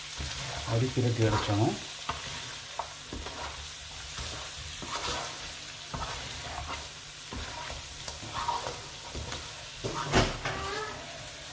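Curry masala frying in hot oil in a pan and being stirred with a spoon: a steady sizzle with scattered scraping clicks, and a sharp knock of the utensil against the pan about ten seconds in.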